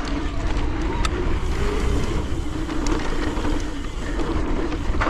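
Wind rushing over the microphone and tyres rolling on a dirt trail as a mountain bike rides at speed, with a steady wavering hum underneath.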